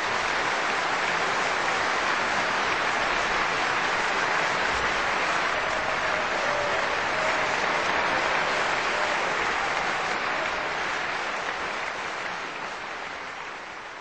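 Audience applauding steadily, dying away toward the end.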